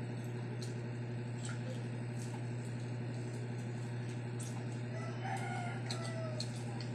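A rooster crows once, faintly, about five seconds in, over a steady low electrical hum. Short crisp clicks of crunchy fried pork intestine being chewed are scattered throughout.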